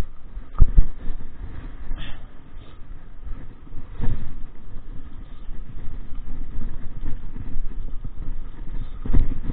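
Mountain bike and mounted camera rattling and rumbling over a rough dirt singletrack. Sharp knocks from bumps come about half a second in, around four seconds in and near the end.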